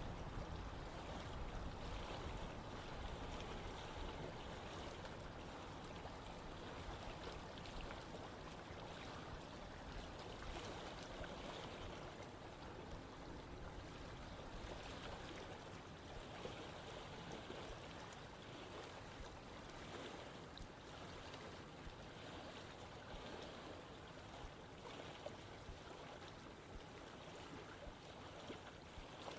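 Running water of a stream: a steady, even rush that eases slightly quieter over the first half.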